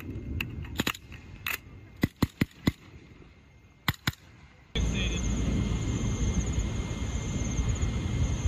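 About ten single rifle shots, irregularly spaced, over the first four seconds. About five seconds in, a much louder steady rushing noise with a high, pulsing trill takes over.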